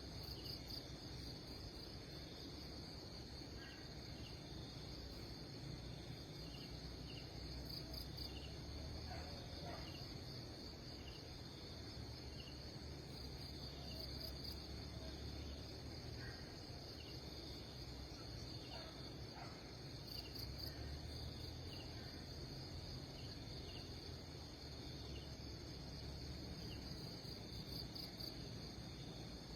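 Insect chorus in wild vegetation: a steady high trilling that runs unbroken, with faint short chirps repeating beneath it.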